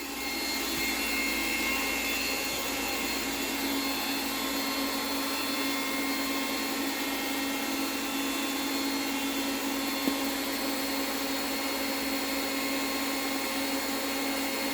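A small electric motor tool with a blowing hiss and a steady hum, running at constant speed after winding up. A single light tap about ten seconds in.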